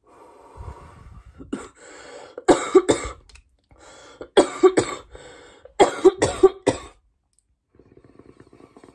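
A person coughing hard in three fits of several coughs each, about two and a half, four and a half and six seconds in, after a hit from a dab rig. A softer breathy sound comes before the first fit and returns near the end.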